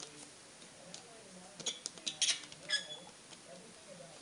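A handful of short, high, scratchy squeaks and scrapes clustered a couple of seconds in: a pen working against the thin aluminium of a soda can, with small handling noises of the can.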